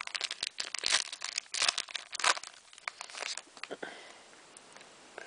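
Foil trading-card booster pack wrapper being crinkled and opened: a dense run of sharp crackles that dies down after about three and a half seconds.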